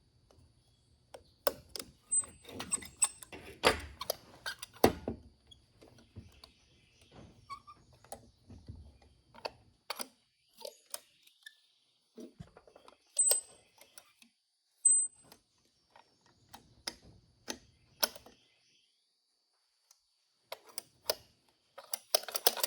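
Irregular clicks, taps and light metallic clinks of small carburetor parts and hand tools being handled during reassembly of a Holley 2280 two-barrel carburetor, a few of them with a brief high ring.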